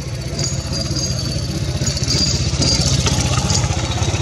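A motor engine idling with a steady low throb, and faint high-pitched chirps above it.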